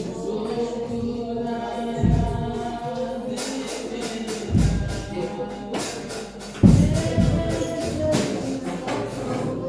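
Gospel praise music with voices singing held notes over a tambourine shaking in rhythm, and a deep drum thud every couple of seconds.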